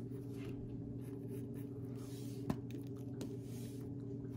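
Pencil scratching lightly on paper as lines are drawn, over a steady low hum; a sharp tick about two and a half seconds in and a smaller one a little after.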